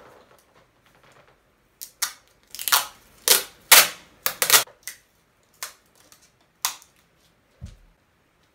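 Sharp crackles and snaps of aluminium energy-drink cans being handled and squeezed, a quick cluster of them in the middle and a few single snaps after. A soft low thump near the end as a body settles onto a seat.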